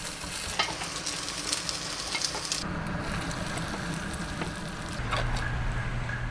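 Food sizzling as it fries in a hot sandwich maker used as a frying pan, with a few small crackles. The sound changes abruptly about two and a half seconds in, and a steady low hum joins about five seconds in.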